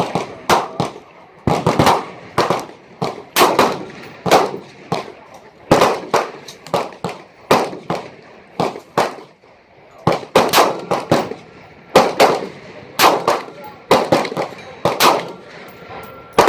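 Gunshots at a shooting range: many sharp reports at irregular intervals, some louder and some fainter, several coming in quick succession.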